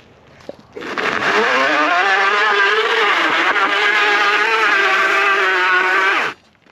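A vehicle motor revving up, rising in pitch and then holding a high, steady note for about five seconds before cutting off abruptly.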